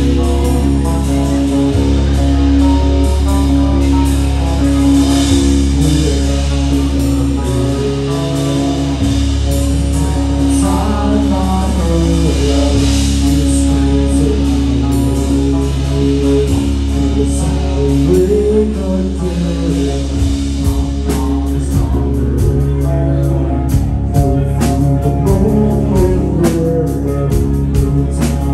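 Live rock band playing loud: electric guitar, bass guitar and drum kit, with a singer. About twenty seconds in, the drum hits come thicker and faster.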